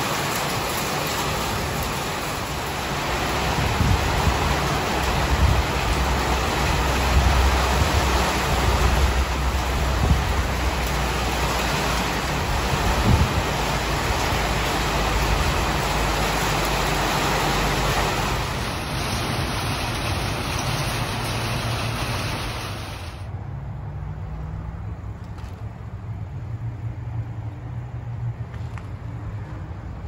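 Heavy rain mixed with small hail falling on a covered patio and gravel yard, a steady loud hiss with a low rumble underneath in the first half. A little over two-thirds of the way through it cuts off suddenly to a much quieter, steady background.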